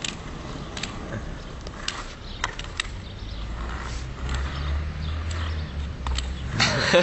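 Skateboard wheels rolling over pavement: a steady low rumble that grows stronger about four seconds in, with scattered clicks and a louder rough burst near the end.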